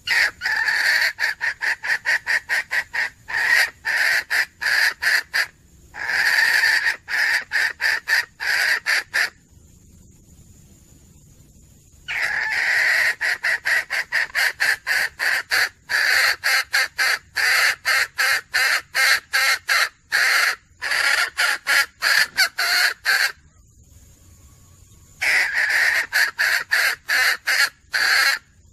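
Red junglefowl hen cackling: four bouts of rapid, repeated sharp clucks at about four a second, each bout opening with a longer drawn note, with short pauses between bouts. It is a hen's call to draw a rooster.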